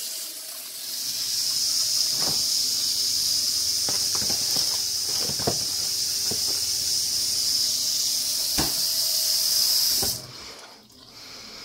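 Kitchen tap running into a stainless steel sink, a steady hiss, shut off suddenly about ten seconds in. A few short knocks and clunks sound over it as a bowl is set into a refrigerator.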